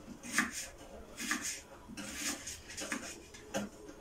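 Kitchen knife chopping onion on a wooden cutting board: a series of chops, roughly one a second.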